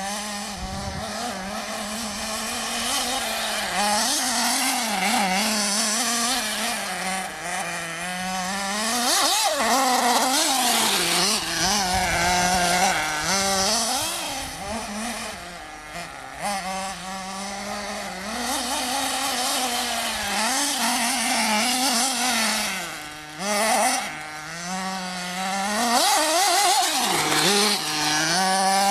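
Small nitro engine of a radio-controlled off-road car revving hard and easing off again and again as it is driven round a dirt track, its pitch rising and falling with the throttle, with a couple of brief drops where the throttle is let off.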